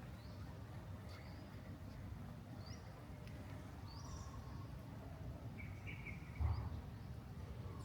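Birds chirping in the morning: several short, rising high chirps and a brief chattering call, over a steady low rumble. A single low thump about two-thirds of the way through is the loudest sound.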